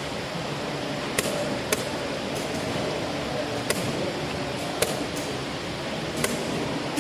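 Five sharp clicks of chess pieces being set down on the board in quick succession during a fast game, over the steady background noise of a busy hall.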